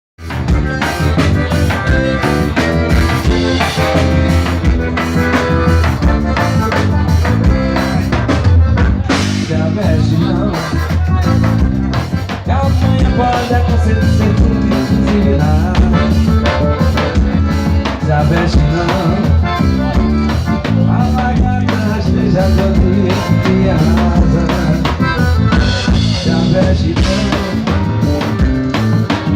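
Music with a drum kit keeping a steady beat and a strong bass line.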